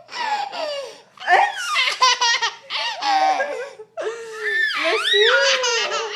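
A small child laughing hard at sneezes, in several bursts of high-pitched giggling with short breaks between.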